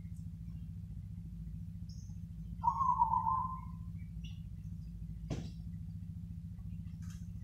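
Zebra dove (perkutut) singing one coo phrase, a quick run of broken staccato coos lasting about a second near the middle. A sharp click follows a couple of seconds later, with faint high chirps of small birds over a steady low hum.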